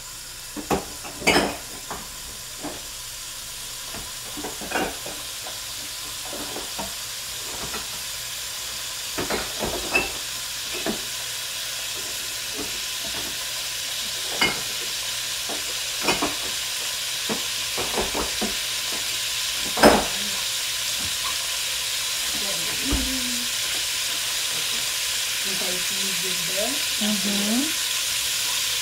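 Haitian epis seasoning paste frying in extra virgin olive oil in a pot, a steady sizzle that grows louder as the oil heats, with a few sharp pops and ticks scattered through it.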